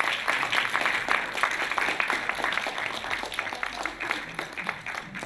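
Audience applauding, a dense patter of claps that slowly dies away in the second half.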